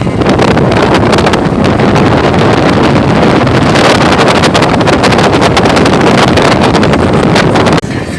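Wind buffeting the microphone aboard a motorboat under way, a loud, ragged rush over the running boat. It cuts off abruptly near the end.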